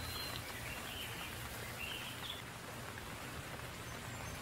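Steady rain falling, with a few short bird chirps over the first two seconds or so.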